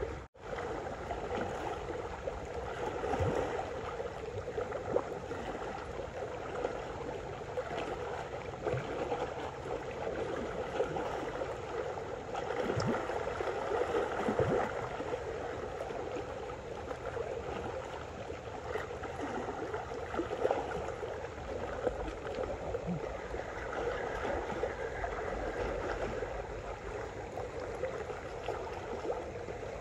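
Small sea waves lapping and sloshing against shoreline rocks, a steady watery wash.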